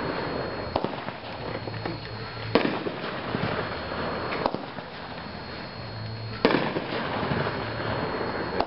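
A 12-shot Hoopla multi-shot firework cake firing: a sharp shot about every two seconds, with a steady crackling hiss between the shots.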